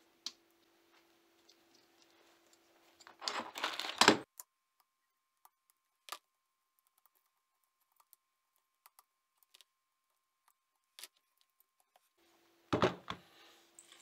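Hands handling the wires and plastic connector of a washing machine motor's tacho sensor: a loud rustle and clatter about three to four seconds in and again near the end, with scattered small clicks between.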